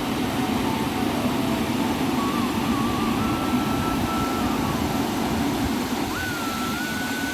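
Large waterfall on the Baitarani river: a steady, even rush of falling water over rock.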